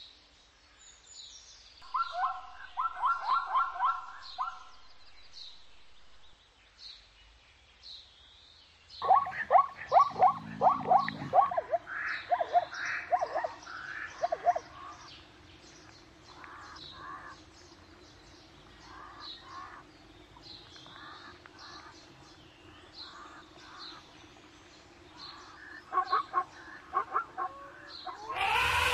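Zebra calling in rapid barking series, one short bout about two seconds in, a longer one falling in pitch from about nine seconds in, and another near the end. Small birds chirp throughout.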